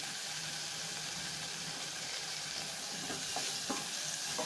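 Chopped tomato frying in oil with onion and spices in a nonstick saucepan, a steady sizzle. From about three seconds in, a few scrapes and knocks as a wooden spatula stirs the pan.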